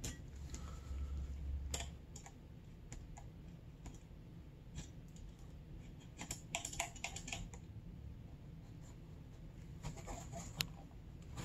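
Light metallic clicks and taps of wrenches and fork cartridge parts being handled while the cap is threaded onto the damper rod, with a quick run of clicks about six and a half seconds in and another around ten seconds.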